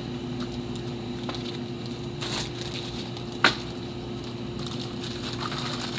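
Steady low hum with faint handling rustles and one sharp tap about three and a half seconds in.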